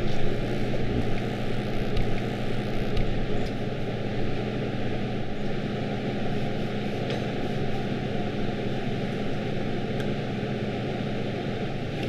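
Steady hiss with a low hum, like a ventilation fan or air conditioning running, with a few faint light ticks.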